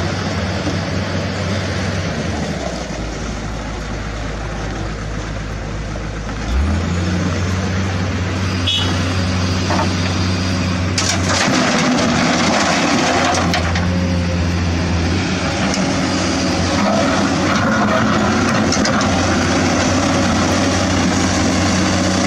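A heavy vehicle engine, of the excavator or dump truck working sand, running steadily with a low hum. It shifts about 3 seconds in and gets louder about 7 seconds in.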